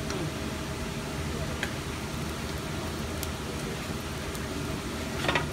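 Steady rushing kitchen noise from the lit gas range, with a few light clicks and a short rattle of utensil contact near the end.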